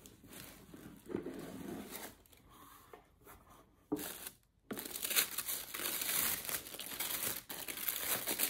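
Tissue paper rustling and crinkling as it is folded back inside a shoe box. The crinkling is soft at first, breaks off briefly a little past halfway, then comes back busier and louder.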